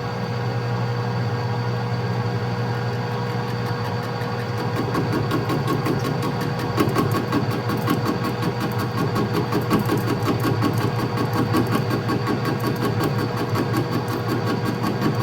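Metal lathe running steadily while the tool takes a turning pass on old axle steel; from about four seconds in, a fast, regular knocking sets in as the tool meets an interrupted cut, which the lathe does not like.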